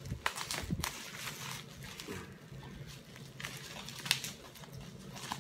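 Plastic wrapping on a package crinkling and crackling with irregular small clicks as fingers pick at it and peel it open, over a faint steady low hum.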